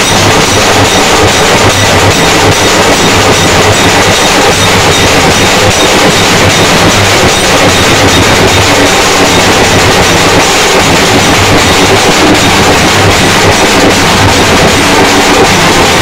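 A Bombay Nasik band's dhol drums beaten hard and fast with sticks together with clashing manjira cymbals, a dense, continuous din. The volume overloads the smartphone recording, so the sound comes through distorted.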